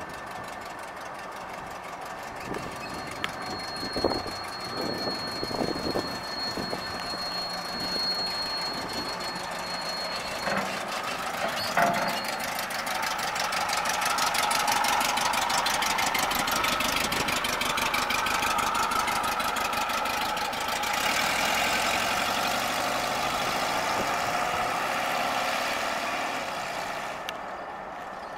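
A 1969 Volkswagen Type 3's air-cooled flat-four engine running. Several sharp knocks and a thin high whine sound over it in the first half. The engine grows louder about halfway through and eases off just before the end.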